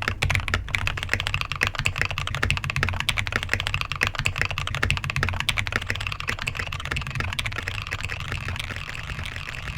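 Fast typing on a Royal Kludge RK G68 mechanical keyboard with lubed and filmed Huano red linear switches and a cheap PBT keycap set: a rapid, dense run of keystrokes, slightly quieter toward the end.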